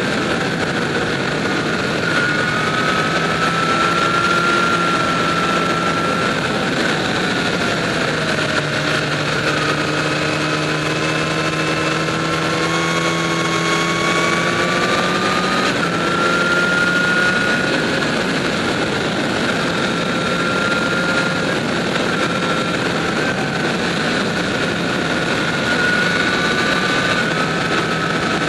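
Motorcycle cruising at road speed, its engine running steadily under a constant rush of wind and road noise. The engine note drifts gently up and down, rising for several seconds in the middle and then settling back.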